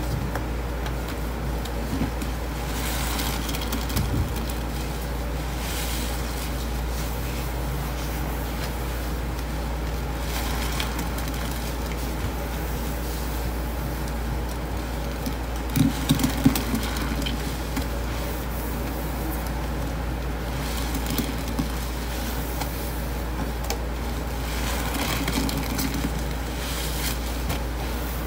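Thick, wet blue paste squelching and crackling as hands squeeze, press and knead soaked sponges in a stainless steel sink, over a steady low hum. A few louder squishes come about halfway through.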